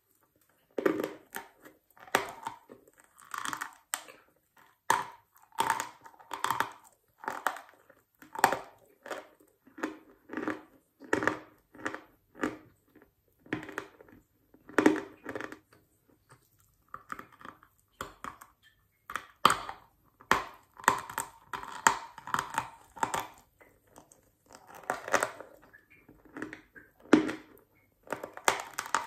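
Dry, medium-hard lump chalk being bitten off and chewed with the mouth: a bite near the start, then repeated short dry crunches, one or two a second in clusters with brief pauses.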